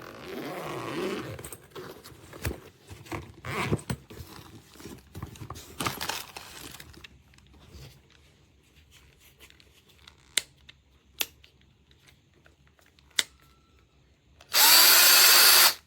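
DEKOPRO 8V cordless drill handled, with rustling and knocking for several seconds and a few sharp clicks. Near the end its motor runs briefly at a steady pitch for about a second.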